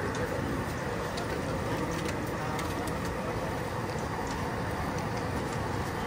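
Steady low rumble and hum of an open-air night market, with faint scattered clicks and no clear voices.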